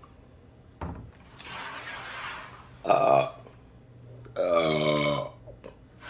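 A woman belches after gulping carbonated Coca-Cola: a breathy exhale, then a short burp about three seconds in and a longer, louder burp with a falling pitch about a second later.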